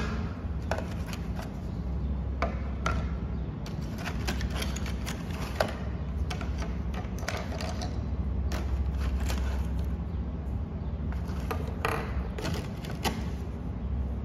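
Small plastic toy sweets and biscuits clicking and tapping as they are picked out of a plastic tray and set down one by one on a tabletop, in irregular small clicks.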